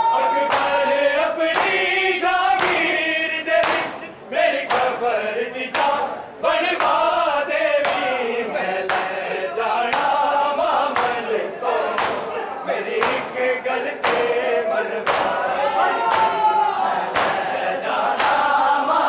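Crowd of men chanting a noha (Shia mourning lament) in unison, with the sharp slaps of open-handed chest-beating (matam) landing together about every 0.8 seconds.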